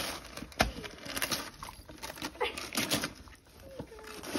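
Wrapping paper crinkling and tearing in short irregular rips as a dog pulls it off a gift box with its mouth.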